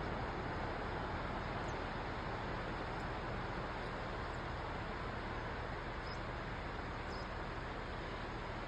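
Ocean waves: a steady, even rush of surf.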